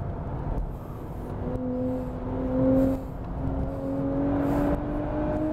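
Nissan Fairlady Z's 3.0-litre twin-turbo V6 heard from inside the cabin while accelerating, its note climbing steadily in pitch over about four seconds, over steady road and tyre noise.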